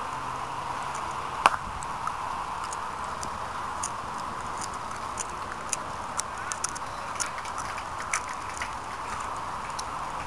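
Cricket bat striking the ball with one sharp crack about a second and a half in, over a steady outdoor hiss with faint scattered ticks.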